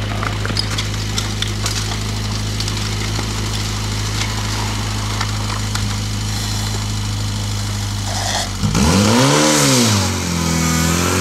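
Portable fire pump's engine running at idle, then opened up about nine seconds in: the pitch swings up and back down before settling at steady high revs as the pump goes to work feeding the laid-out fire hoses.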